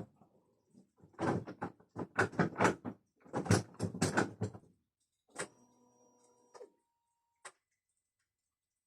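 Runs of rapid knocking from a Ford Mondeo Mk3's driveshaft support bearing, the knock typical of a worn hanger bearing, followed by a short steady hum and a single click.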